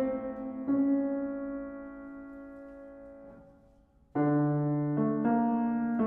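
Solo piano: a held chord rings and fades away over about three seconds, there is a brief pause, and a new chord comes in about four seconds in with another note added a second later.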